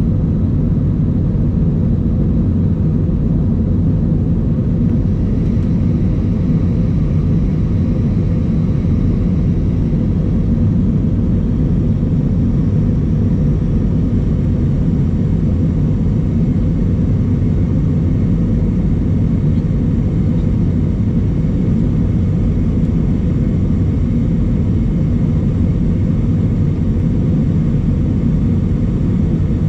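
Airbus A320 cabin noise heard from a rear window seat: the jet engines and airflow make a steady, loud rumble that holds level throughout, with a faint thin whine above it.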